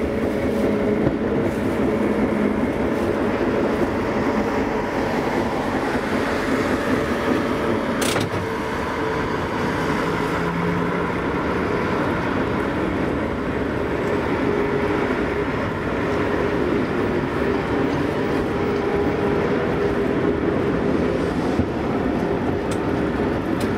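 1904 ASEA-built SSB A2 tram running along its rails, heard from its open front platform: a steady running noise of wheels and motor. A single sharp click about eight seconds in.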